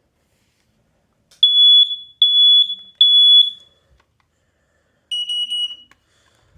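A combination smoke and carbon-monoxide alarm sounding during a test-button test. It gives three loud, high beeps of about half a second each, the three-beep fire signal. After a pause of a second and a half comes a short run of about four quick beeps at a slightly lower pitch, the carbon-monoxide signal.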